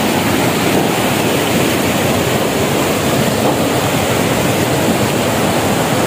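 Water rushing over a series of small rocky cascades into a shallow stream: a steady, even rush with no break.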